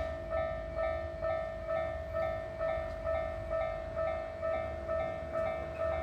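Japanese railway level-crossing warning bell ringing in a steady repeating ding, a little over two strikes a second.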